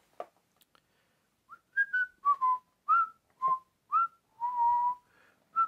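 A person whistling a tune: a run of short notes with small upward slides, starting about a second and a half in, with one longer held note about three and a half seconds in.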